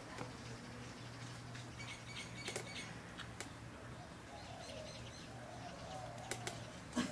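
Birds chirping and calling in the background, with a few sharp clicks from eating by hand off a steel plate, the loudest near the end, over a low steady hum.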